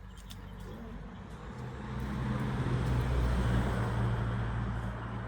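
A motor vehicle passing by: its engine hum and road noise grow louder to a peak about three seconds in, then fade.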